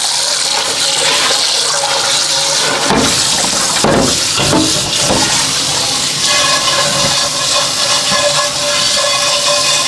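Kitchen tap running full into a stainless steel sink while an enamelled cast-iron pot is rinsed and scrubbed under the stream, with a few knocks of the pot about three to four seconds in. From about six seconds in, the water falls on the pot's upturned outer side.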